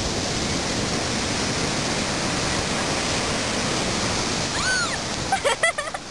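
Steady rushing noise of ocean surf and wind on the beach. About four and a half seconds in, a short high voice call rises and falls, followed near the end by a few brief voice sounds.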